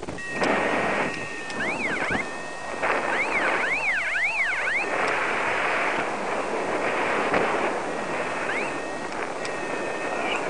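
Paragliding flight instruments beeping: a variometer's electronic tone sweeping quickly up and down in runs of chirps, alongside steady high beeps. Wind rushes over the microphone throughout, swelling and fading.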